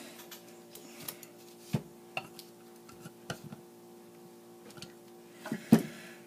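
Scattered small clicks and taps of pliers and small metal parts being handled during a guitar pedal repair, with one louder knock near the end, over a steady low electrical hum.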